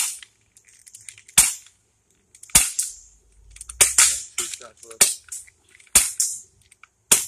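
Umarex CO2 air pistol fired repeatedly: about seven sharp pops, roughly one a second.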